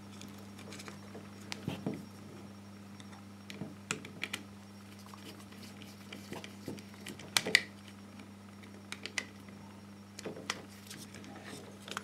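Scattered small clicks and taps of an insulated screwdriver and fingers working a dimmer switch's plastic back and terminal screw as a wire is fastened in it, over a steady low hum.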